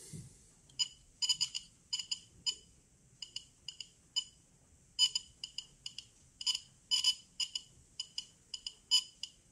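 A radiation counter's beeper chirping at irregular, random intervals, about three short high beeps a second, some bunched together. Each beep is a count registered by the Geiger–Müller tube wired to it.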